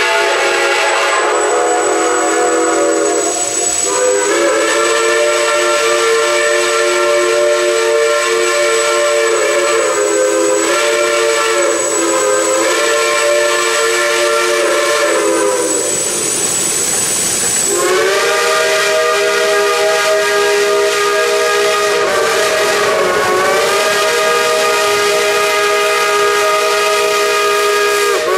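Several geared steam locomotives' whistles (Shays and a Climax) sounding together as a loud chord of different pitches. They blow in long held blasts with short breaks, the longest break about halfway through.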